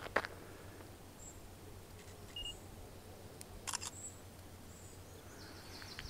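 Quiet outdoor ambience with a few sharp clicks at the start and again about three and a half seconds in, and several faint, very brief high bird chirps.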